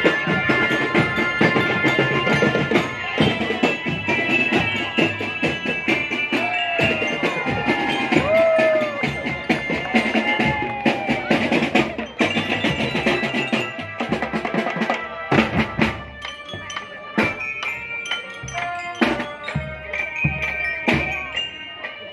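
A marching drum band playing: rapid snare and bass drum strokes under a melody of bright, bell-like mallet percussion notes. The playing thins out to sparser drum hits over the last few seconds.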